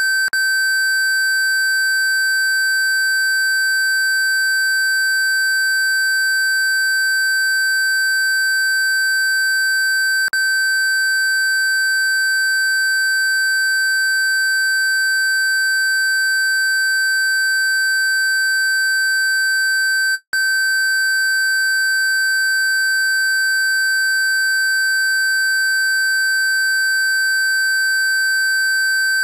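Steady electronic pure sine tone at 1550 Hz, a single unchanging high whistle-like pitch. About twenty seconds in it cuts out for a split second and then resumes.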